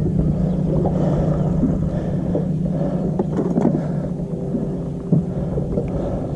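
Steady low hum of a bass boat's electric trolling motor holding the boat in place on spot lock, weakening after about four seconds. A few light knocks are heard, the sharpest about five seconds in.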